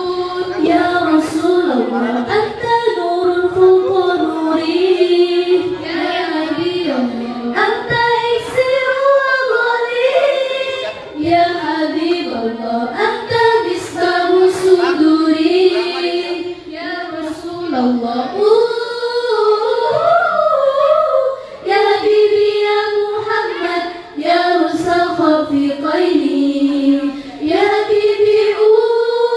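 Girls' a cappella nasyid group singing into microphones, with no instruments: a moving sung melody line with short breaks between phrases.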